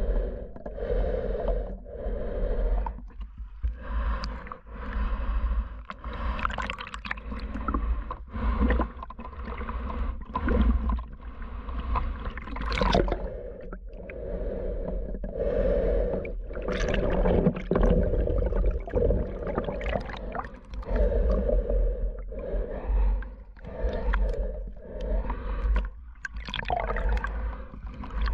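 Repeated breaths drawn in and out through a full-face snorkel mask's built-in snorkel, each lasting a second or two, over a steady low rumble of water gurgling around the submerged microphone.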